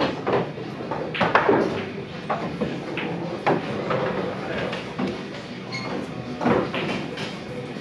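Several sharp clacks of pool balls and cue strikes, spaced a second or more apart, over a steady background of voices in a bar.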